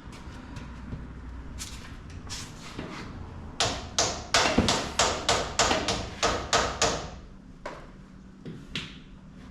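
A few light taps, then a steady run of about a dozen sharp hammer blows, about three a second, on the truck's rear suspension and frame parts.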